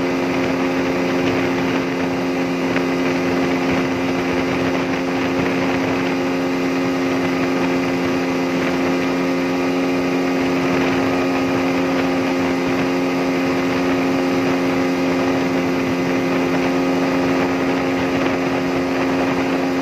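Yamaha outboard motor running steadily at high speed, its pitch held constant, with water rushing and spraying off the hull and wake.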